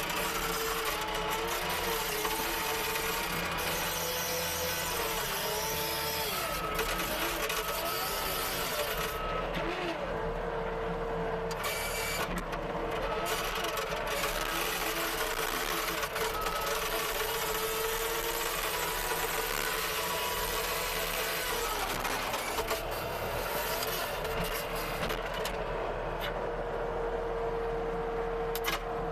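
CASE TR270B skid steer running under load with a rototiller attachment, its engine and hydraulics making a steady drone with a whine that wavers in pitch.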